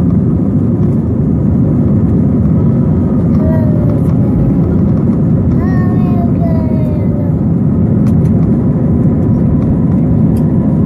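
Jet airliner cabin noise during takeoff and initial climb: the engines at takeoff power make a loud, steady rumble, heard from inside the cabin.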